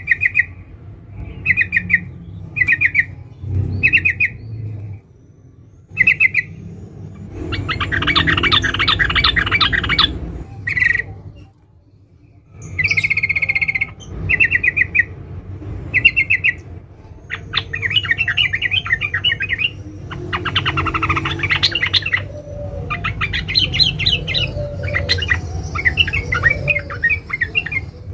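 Female trucukan bulbul calling: a run of short, clear chirps about once a second, then bursts of dense, rapid chattering (ngeriwik rapat) of a second or more each, the long call a female uses to draw a male.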